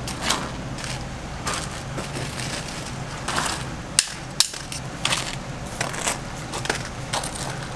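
Metal tongs clicking and clinking against a steel tray as fried croquettes are handled, with two sharp clicks about four seconds in, over a steady low hum.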